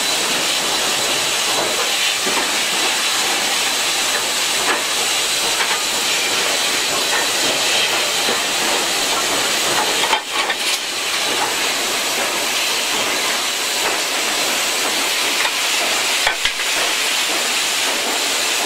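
Footplate sound of the GWR King class steam locomotive No. 6023 'King Edward II' under way: a loud, steady hiss of steam, broken by a couple of short knocks about ten seconds in and again near the end.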